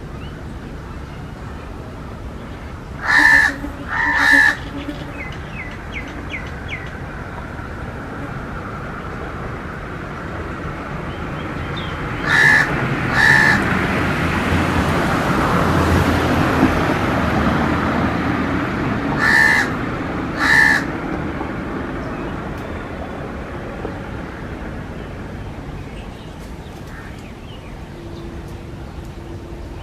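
A crow cawing: three pairs of harsh caws, the two calls in each pair about a second apart. Behind them a rushing background noise swells and fades over the middle of the stretch.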